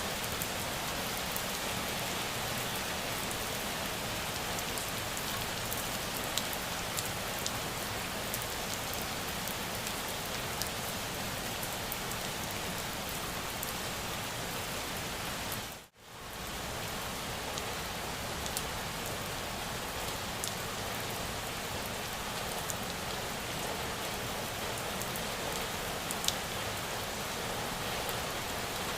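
Steady rain falling, an even hiss with scattered single drops ticking sharply. About halfway through it fades out to near silence for a moment and comes straight back.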